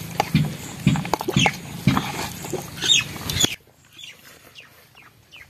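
Close, crackly rustling and clicking from fingers mixing rice on a steel plate, with a few short, high, falling chirps. The sound drops off sharply about three and a half seconds in, leaving only faint chirps.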